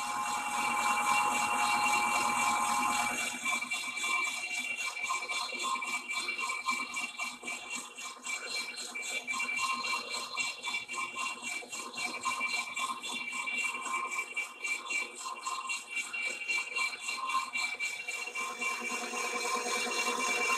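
Big Monarch engine lathe running, turning a steel trommel trunnion wheel under a cut with a new indexable insert cutter: a fast, even rattle over steady high whines, fuller for the first few seconds.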